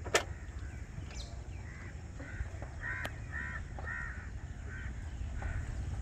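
Crows cawing again and again, a run of short calls coming in quick clusters, over a steady low rumble. A single sharp click sounds just after the start.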